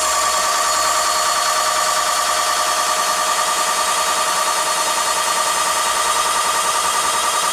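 Small electric-motor-driven model boiler feed pump with a 3/8-inch stainless steel ram, running and pumping water. It makes a steady whine with a fast, even pulse.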